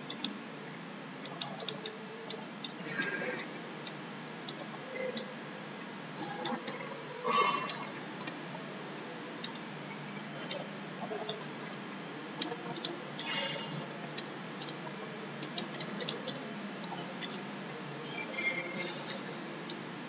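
Pen stylus tapping and clicking on a writing tablet during handwriting: irregular sharp ticks, some in quick clusters, over a steady background hiss.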